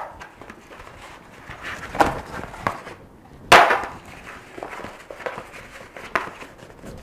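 A sheet of thin red card being rolled and flexed by hand to take out its curl, rustling, with sharp crackles of the card about two, three and a half, and six seconds in.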